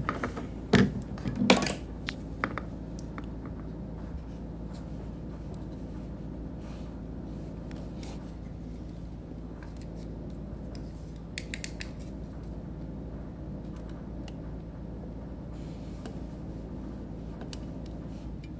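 Small metal hand instruments clicking and knocking a few times in the first couple of seconds as they are handled and set down, then a steady low hum of room tone with faint scattered ticks.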